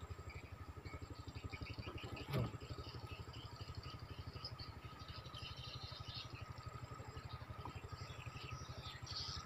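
A small engine runs steadily nearby with an even, rapid low pulse. About two and a half seconds in, a brief sharp sound falls quickly in pitch.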